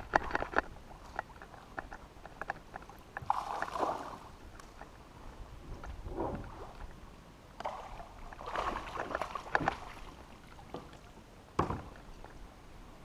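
Water splashing and lapping around a kayak as it is paddled, in a handful of separate bursts, with a few small clicks and knocks between them.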